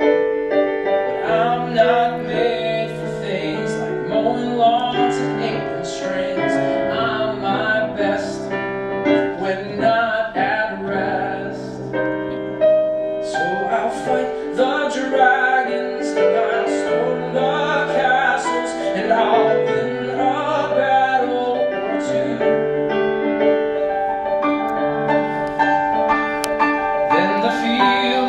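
A man singing a musical-theatre ballad live with grand piano accompaniment, the piano holding sustained chords under the voice.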